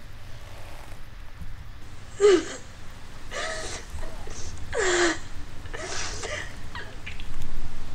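A woman sobbing: four breathy, wailing sobs, each falling in pitch, starting about two seconds in and coming roughly a second apart, over a steady low hum.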